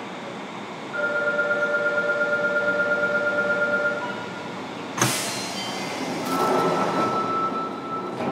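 Inside a Fukuoka City Subway 1000N-series train car at a station stop: a pulsing door-closing buzzer sounds for about three seconds, then the sliding doors shut with a sharp thud about five seconds in. A rush of noise and a steady high tone follow.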